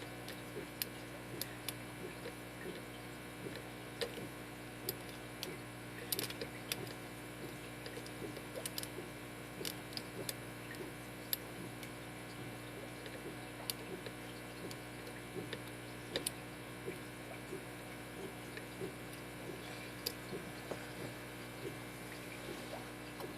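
Lock pick working the pin tumblers of a Schlage SC1 five-pin deadbolt clamped in a vise: faint, irregular small metallic clicks and ticks as pins are lifted and set, over a steady low hum.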